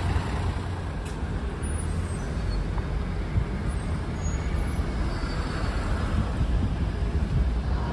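Street traffic around a bus and taxi rank: the engines of buses and cars running, a steady low rumble of road noise.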